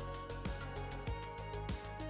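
Background music with a steady beat over held tones.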